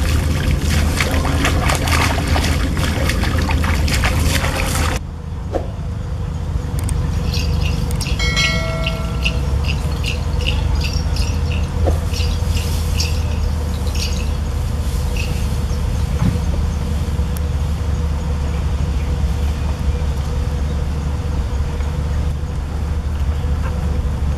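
Splashing and sloshing of muddy water as hands dig in a shallow flooded field, over wind rumble on the microphone. About five seconds in it changes abruptly to an outdoor field ambience of steady wind rumble with a few short high chirps.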